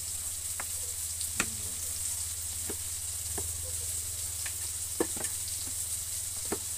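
Food frying in oil in a wok, a steady sizzle, with several sharp clicks and knocks scattered through, the loudest about a second and a half in and about five seconds in.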